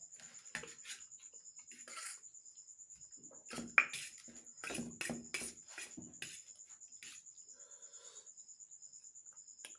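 Eating sounds of Maggi noodles, irregular clicks and smacking bursts of chewing and slurping, with one sharp click a little under four seconds in. A cricket chirps steadily in the background as a fast, even, high pulsing.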